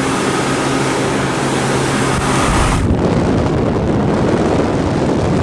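Gibson 5000 BTU window air conditioner running on high fan only, a loud steady rush of airflow over a low hum, with slight fan-motor bearing noise typical of a unit approaching 20 years old. About halfway through the hiss drops and a lower rumble carries on.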